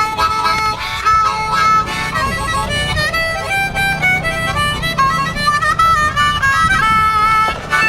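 Background music: a jazz track with a lead melody of held notes that change pitch every fraction of a second.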